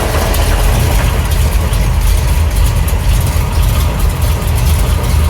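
1975 Chevrolet C10's engine idling, loud and steady with a deep rumble and a light, fast ticking on top. The engine has a knock that the owners suspect comes from something in the oil pan.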